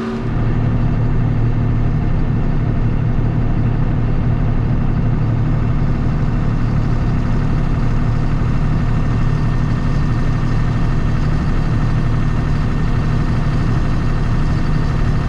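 Combine harvester's engine and machinery running steadily at a constant speed, a deep even hum with no change in pitch.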